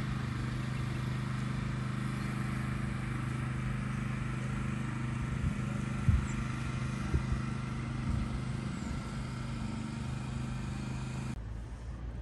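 A motor running steadily at an even pitch, with a few short knocks about six and seven seconds in; it stops abruptly near the end, leaving a quieter low rumble.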